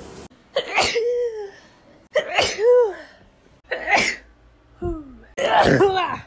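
A run of about four loud human sneezes in quick succession, each a sharp burst, several ending in a voiced, pitched tail.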